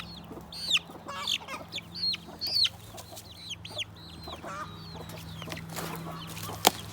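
Newly hatched chick peeping over and over in short, high, falling chirps, with a hen clucking lower now and then. A single sharp click near the end.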